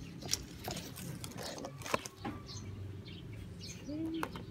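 Leaves and twigs of a garden shrub rustling and brushing against a phone as it is pushed through the foliage: scattered clicks and rustles over a low steady hum.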